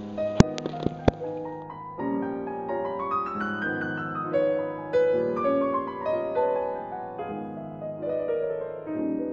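Background piano music playing melodic runs of notes, with three sharp clicks in the first second.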